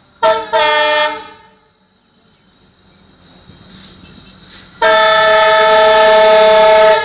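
WDP4 diesel locomotive's horn sounding: two short toots right at the start, then one long steady blast from about five seconds in. Between them, the low rumble of the approaching train grows.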